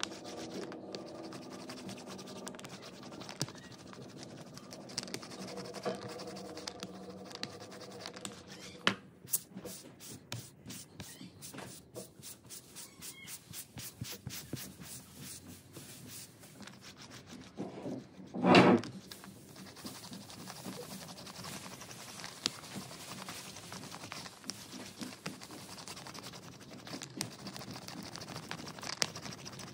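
A sponge and an ink roller rubbing and scraping over a plywood Mokulito plate in many short strokes, with one brief louder bump a little past the middle. Background music fades out in the first few seconds.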